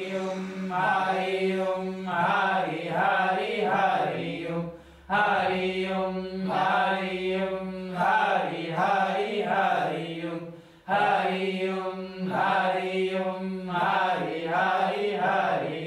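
A mantra chanted on one steady pitch in three long phrases, with a short break for breath about 5 and 11 seconds in.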